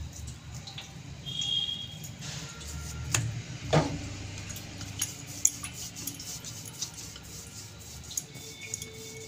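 Soft handling sounds of dough being pressed flat by hand on a wooden rolling board, with a few sharp knocks, the loudest about three and four seconds in, and light clinks. A wooden rolling pin starts rolling the dough on the board near the end.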